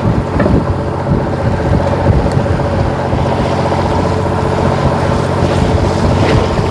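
Fishing boat's engine running with a steady hum, with wind buffeting the microphone.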